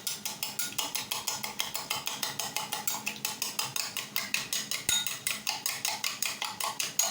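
Eggs being beaten by hand in a bowl, the utensil clicking against the bowl about six times a second in a steady rhythm.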